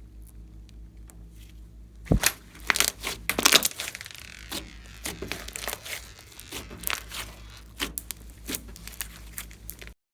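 Slime being worked by hand, giving irregular sharp crackles and pops that start about two seconds in, after a faint low hum.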